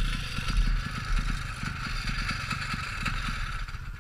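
An off-road vehicle engine idling with a low, uneven pulse, with scraping and clattering close by.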